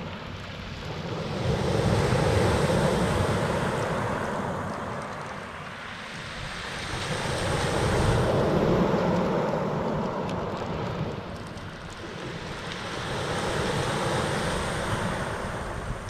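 Black Sea waves breaking on a pebble beach, the surf swelling and ebbing three times, about every six seconds.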